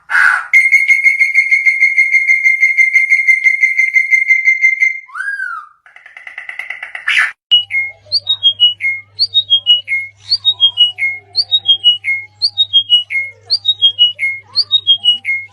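Bird calls: a long, steady, rapid trill on one pitch, a short up-and-down whistle, then a call of a few notes stepping down in pitch, repeated about twice a second over a low hum.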